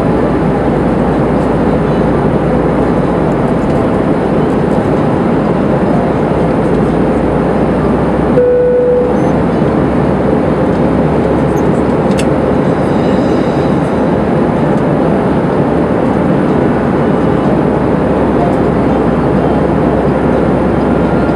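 Steady cabin noise inside an Airbus A319 in flight, engine and airflow noise heard from a window seat over the wing. About eight seconds in there is a brief steady tone, and a faint click a few seconds later.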